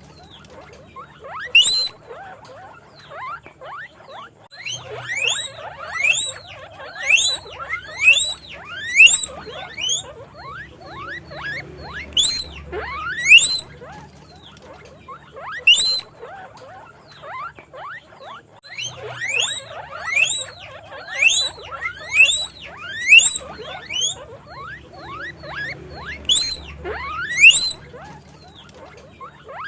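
Guinea pigs squeaking: a run of short, shrill calls, each rising sharply in pitch, repeated irregularly about once or twice a second.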